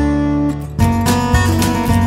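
Background music with guitar and a steady beat, thinning out briefly just under a second in before picking up again.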